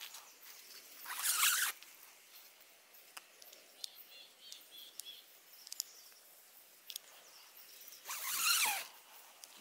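A tent zipper pulled twice: a short zip about a second in and a longer one near the end, with faint ticks and rustling between.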